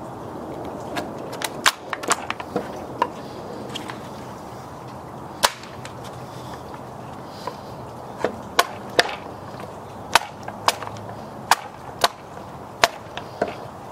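Wood chisel driven with a hammer, breaking out the slices of wood between saw kerfs in a pressure-treated 6x6 post: irregular sharp knocks and cracks, coming thicker from about eight seconds in.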